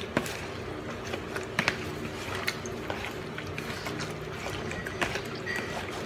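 Light taps and knocks of hands handling chicken pieces in a plastic container beside a bowl of breading, the loudest a pair of knocks about a second and a half in, over a steady low hum.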